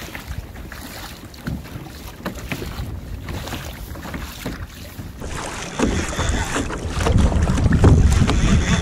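Wind and water on open sea: a light even wash of wind and lapping water, then from about five seconds in, louder wind buffeting the microphone with a low rumble and small knocks and slaps of water against a kayak hull.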